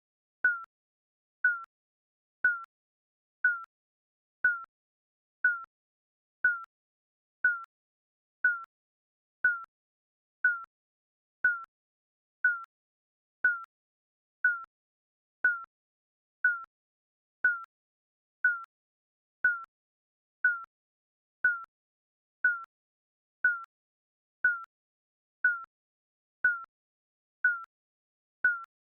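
Digital countdown timer beeping: a short, high electronic beep once a second, each with a sharp click at the start.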